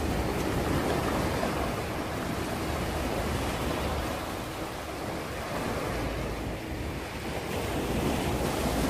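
Small sea waves breaking and washing up a sandy beach in a steady hiss, with wind rumbling on the microphone; the wash eases a little midway and swells again near the end as another wave comes in.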